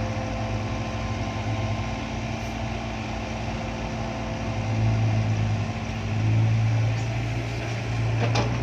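Diesel dump truck engine running, its low steady note swelling louder twice in the middle as it is revved or pulls nearer, with a short sharp knock near the end.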